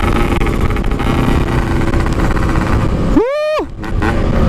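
Yamaha RX-King two-stroke single-cylinder motorcycle running at speed with a packing-power aftermarket exhaust, mixed with steady wind rush. About three seconds in, a short pitched call rises and then falls over the engine.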